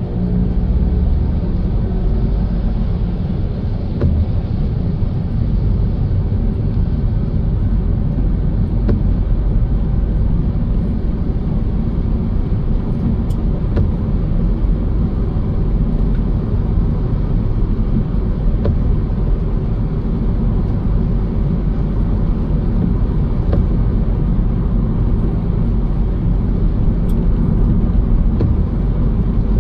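Steady low rumble of a car driving on a rain-wet road, tyre and engine noise without change, with a few faint clicks now and then.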